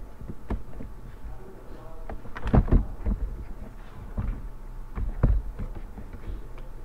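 A few sharp knocks and thumps, the loudest a quick cluster about two and a half seconds in and another about five seconds in.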